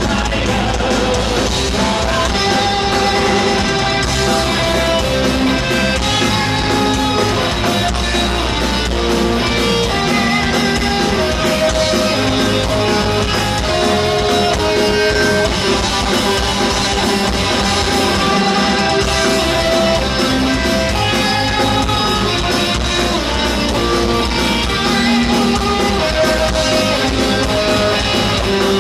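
Heavy metal band playing live: electric guitars carry a melodic line of held notes over drums, recorded from the audience.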